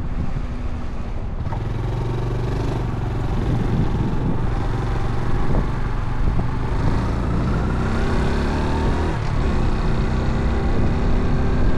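Motorcycle engine running under way, with a low rumble of road and wind noise. Its pitch climbs steadily over the last few seconds as it accelerates.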